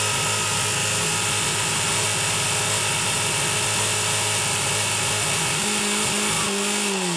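Portable fire pump's engine running flat out at high, steady revs; near the end it is throttled back and the pitch falls.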